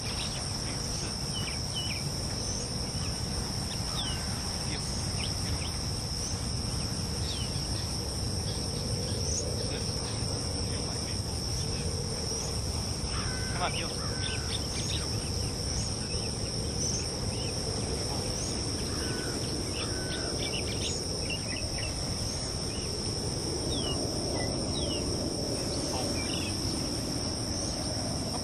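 Steady insect chorus: two unbroken high-pitched trills carry through without a pause, with scattered short falling chirps over them.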